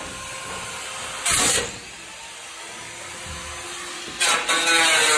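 A power cut-off tool cutting car-body sheet metal: a short burst of cutting about a second in, then it starts again near the end and runs on, its pitch sagging under load.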